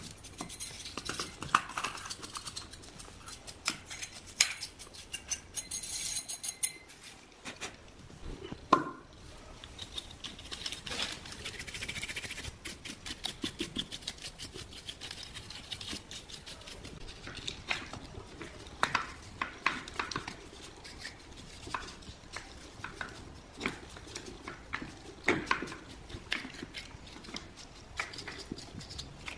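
Irregular clicks, taps and light knocks of hand tools and small parts being handled on a workbench, with a couple of louder knocks and a brief high whine a few seconds in.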